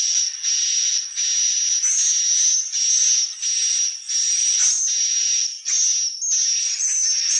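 Swiftlet calls: a steady run of raspy chirps with a thin high whistle on top, about one every 0.7 seconds.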